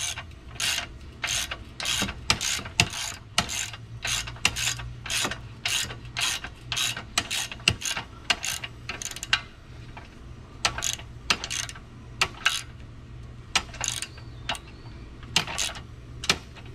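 Ratchet wrench clicking in short bursts, about two a second with a few brief pauses, as a 5/8-inch nut is run down tight on a car dolly's strap bolt.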